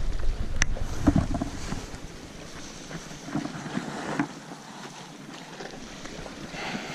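Wind buffeting a chest-mounted action camera's microphone, heavy for the first couple of seconds and then easing off, over the sea washing against the rocks. A few light scuffs and knocks come through as the wearer shifts on the rocks.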